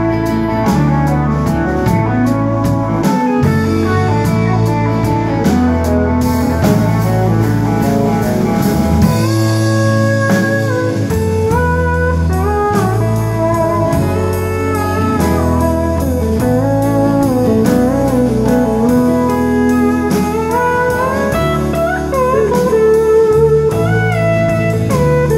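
Live blues band playing: a lap steel guitar gliding between long notes over drums with cymbals, electric guitar and bass.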